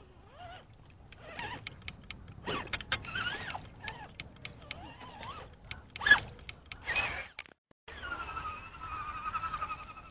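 Radio-controlled mud-bogger truck's motor whining, rising and falling with the throttle, along with sharp clicks and knocks as it churns through a muddy puddle. After a brief break near the end, a steadier whine.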